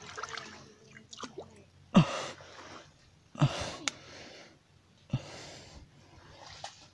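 A person breathing hard close to the microphone: four heavy exhalations about a second and a half apart, with a few faint handling clicks before the first.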